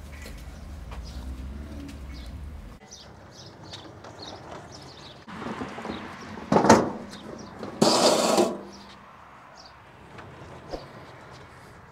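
Small birds chirping in the background, with two loud rough rattling noises about six and a half and eight seconds in as a loaded wheelbarrow is pushed through a gateway.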